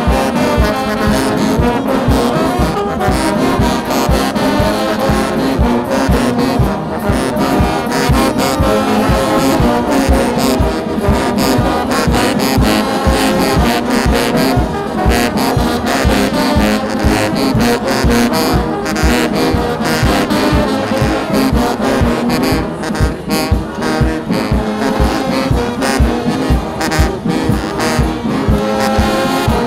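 Brass band music with trombones and trumpets playing over a steady beat.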